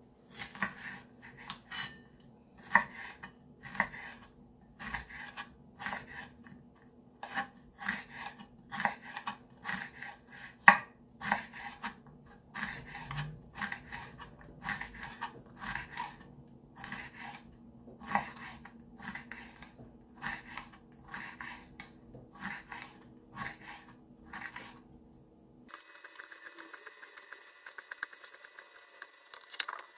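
Chef's knife slicing a bell pepper into thin strips, the blade tapping on a bamboo cutting board about twice a second. Near the end the strokes give way to faster, lighter ticking.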